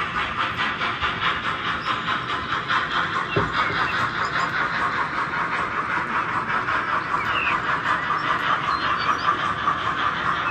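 Steam-locomotive sound decoders (ESU LokSound) in H0-scale model ÖBB steam locomotives chuffing in a fast, even rhythm over a steady hiss while the model freight wagons roll along the track. A single short knock about a third of the way in.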